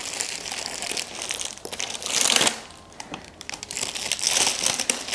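Plastic packaging crinkling and rustling as kit parts are handled and unpacked, with louder surges about two seconds in and again near the end.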